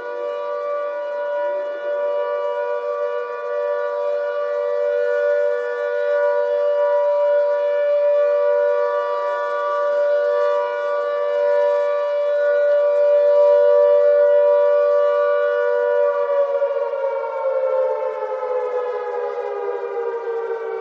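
Air raid siren sounding two tones together, held at a steady pitch with a slight waver in loudness, then winding down, its pitch falling, from about sixteen seconds in.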